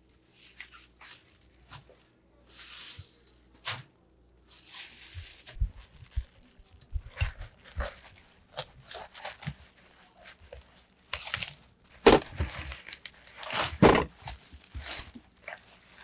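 Napa cabbage being cut at the base with a knife and its crisp leaves torn apart by hand: a run of irregular tearing and crunching sounds, the loudest about twelve and fourteen seconds in. Plastic sheeting crinkles under the leaves.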